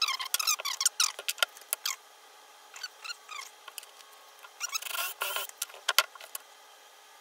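Handling noise at a workbench: a cordless drill's chuck being turned as the bit is changed, with quick clicks and short squeaks over the first couple of seconds. A wooden block then scrapes against the bench for about a second, roughly five seconds in.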